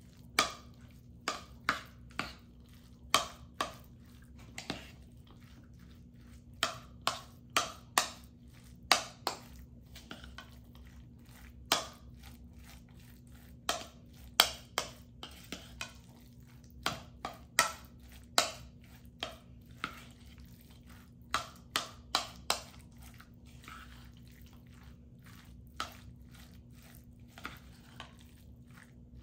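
Metal fork stirring chicken salad in a mixing bowl: irregular sharp clinks and scrapes of the fork against the bowl, some two or three a second in spells, with soft wet squishing of the mayonnaise-dressed chicken.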